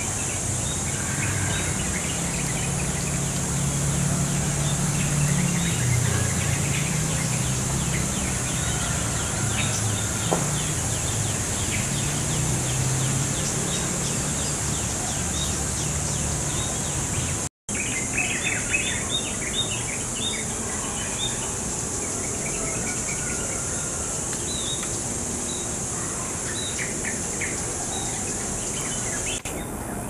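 Short, thin, high chip calls of small birds, repeated in quick scattered runs and thickest a little past halfway, over a steady high-pitched insect drone. A low hum underlies the first half.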